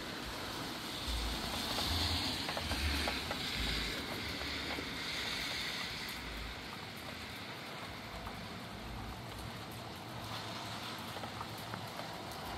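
Gusty wind blowing through trees with rain falling, stronger for the first several seconds and then easing. Gusts hit the microphone with low rumbles.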